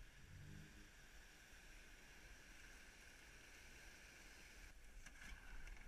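Near silence: a faint, steady wash of surf, with no clear distinct event.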